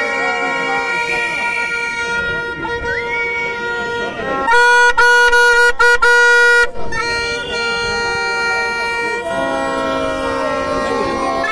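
Plastic horns blown by a crowd, several steady blaring tones held at once over crowd chatter. One blast is louder, from about four and a half to nearly seven seconds in.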